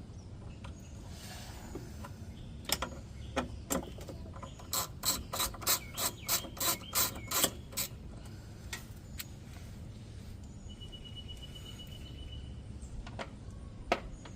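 Socket ratchet wrench clicking as it turns out the underbody panel bolts: a few single clicks, then a run of about three or four clicks a second, then scattered clicks again.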